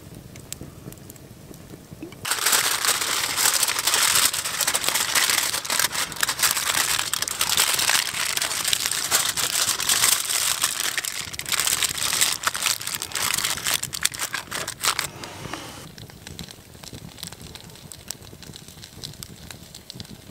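Aluminium foil being folded and crumpled into a cooking parcel, a loud dense crinkling with many sharp crackles that starts suddenly about two seconds in and dies away around fifteen seconds. After that, fainter crackling of a campfire.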